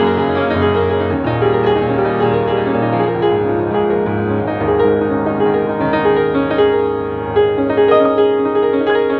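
Piano music: chords over a low bass line, the notes changing every second or so.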